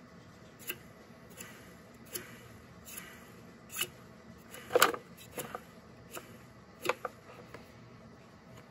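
Small clicks and knocks of a disassembled shop vac motor and its loose parts being handled, a few light taps spaced under a second apart, then a louder clatter about five seconds in and another knock a couple of seconds later.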